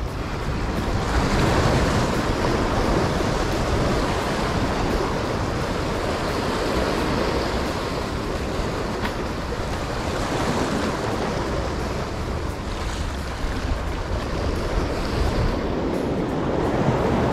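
Small waves surging and washing over rocks just below, with wind on the microphone; the wash swells about a second in and again near the end.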